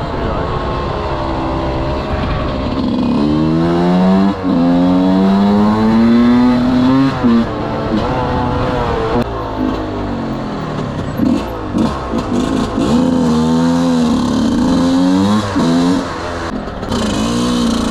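125 cc two-stroke enduro motorcycle revving hard under way, its pitch climbing and then dropping again several times as it shifts and rolls off the throttle. Near the end come short, quick blips of throttle.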